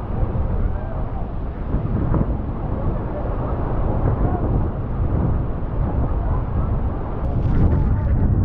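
Steady, loud rushing roar of wind buffeting the microphone on an open boat deck, mixed with the rush of the waterfall's spray, with passengers' voices in the din.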